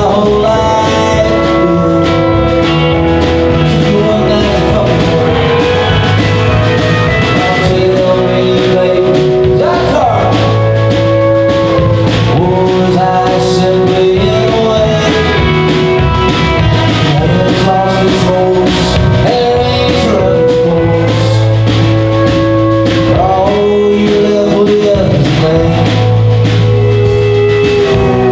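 A live country-rock band playing loudly, with drums keeping a steady beat under guitars and gliding melodic lines.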